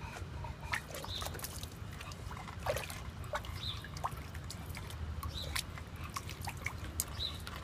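Water splashing and sloshing in a plastic kiddie pool as an English bulldog puppy wades through it and paws at a ball, with many small, sharp splashes and drips.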